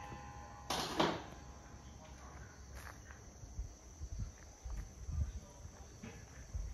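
Insects chirping steadily in the background, with a short knock about a second in and soft low thumps of footsteps as the camera is carried.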